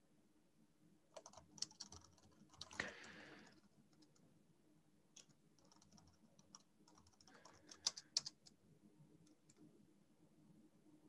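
Faint typing on a computer keyboard: scattered keystrokes in small clusters, with a quicker run of clicks about eight seconds in.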